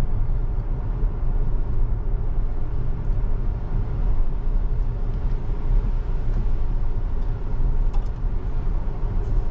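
Steady road and tyre noise inside a Tesla's cabin, driving on wet pavement: a low rumble with a light hiss and no engine sound.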